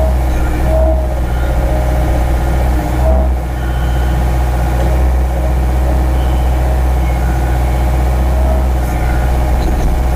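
A vehicle engine running steadily with a deep, even hum and no change in speed, with a few brief squeaks.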